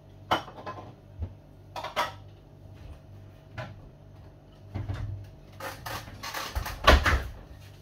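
Kitchen cupboard door knocking and crockery clattering as a bowl is taken from the shelves and set down: several separate knocks, then a busier clatter in the last few seconds, loudest near the end.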